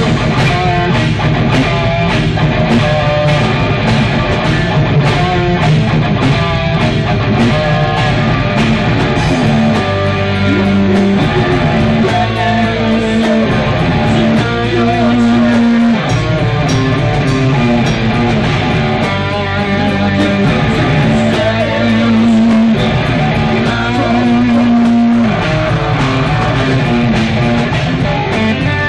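Metal band playing live: distorted electric guitars, bass and drums, heard from the audience in a theatre. From about ten seconds in the guitars and bass hold long low notes over the drums.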